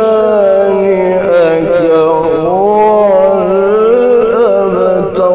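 A man reciting the Quran in a drawn-out melodic chant, holding and bending long notes in one unbroken line.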